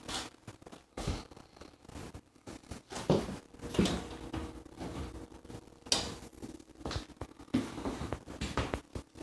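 Handling noise from a handheld phone: scattered short knocks and rustles, over a faint steady hum.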